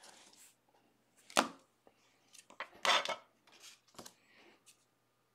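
Hard plastic card holders being handled and set down on a tabletop: a sharp click about a second and a half in, a short scraping rustle near three seconds, then a few light taps.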